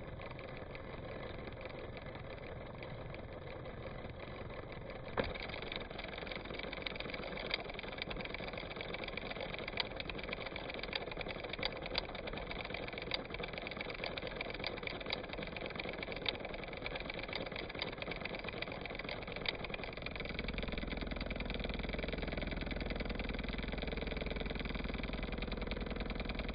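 An engine running steadily at idle. About five seconds in there is a click, after which the sound turns brighter with scattered ticks; from about twenty seconds in, a deeper low rumble sets in.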